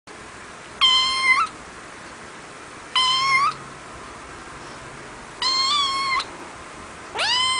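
Scottish Fold kitten meowing four times, high-pitched calls about two seconds apart, the last one rising in pitch.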